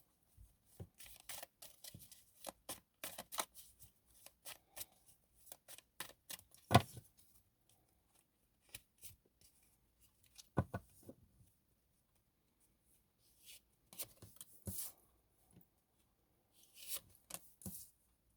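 Tarot deck being shuffled by hand: a quick run of soft card slaps and flicks for the first several seconds, with one sharper knock about seven seconds in, then a few sparser card sounds separated by pauses.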